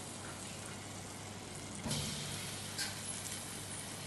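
Banana fritter dough balls deep-frying in hot oil in a wok: a steady sizzle that swells suddenly about two seconds in as another ball of dough goes into the oil.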